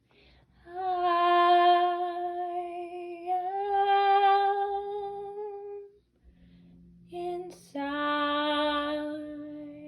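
A single voice singing a long held note that steps up slightly about three seconds in and stops about six seconds in; after a short gap a second long, lower held note begins near the end.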